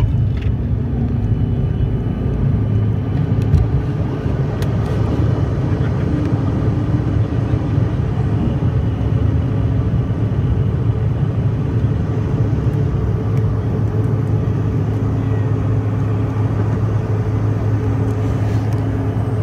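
Regional jet's engines at takeoff thrust, heard inside the passenger cabin: a loud, steady drone with a deep hum, running on unchanged through liftoff and the first climb.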